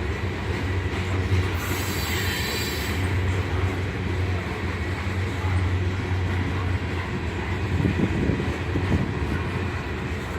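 Freight train hopper cars rolling past, their wheels giving a steady rumble on the rails, with a brief high wheel squeal about two seconds in.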